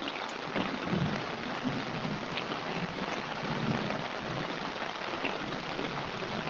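Heavy rain pouring down steadily, an even hiss of drops with scattered louder splats, and a low rumbling underneath during the first few seconds.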